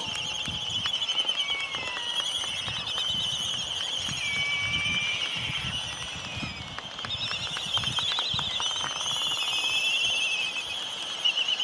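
Birds singing: a continuous, rapid, high trilling chorus of several overlapping birds, with a few short whistled notes among it.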